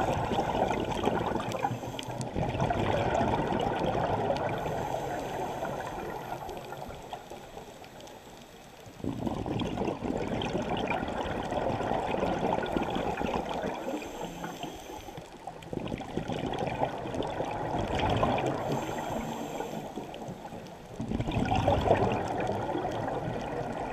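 Scuba exhalation bubbles rushing and gurgling up from a diver's regulator, heard underwater. Each breath out starts as a sudden surge that fades away, coming in several waves a few seconds apart.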